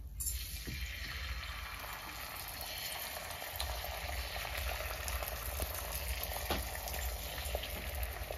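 Beaten egg sizzling and crackling as it hits a hot, oiled iron tawa and fries, starting suddenly as it is poured, with a few sharp clicks.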